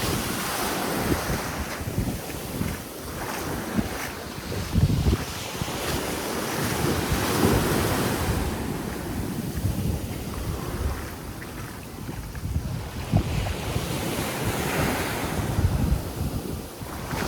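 Sea waves washing onto a beach, the surf hiss swelling and fading about three times, with wind gusting against the microphone.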